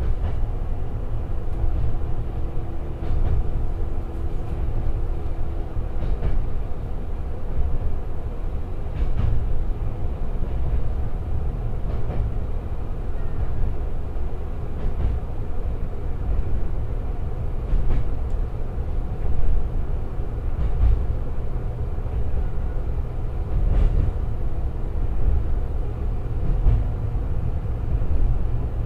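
Tsugaru 21-type diesel railcar running slowly, heard inside the car. Its Niigata DMF13HZ diesel engine drones steadily in torque-converter drive, and the wheels clack over rail joints about every three seconds.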